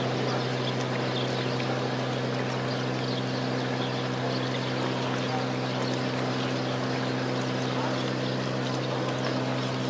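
Ferry's engine running with a steady low drone, over a constant rushing hiss of water.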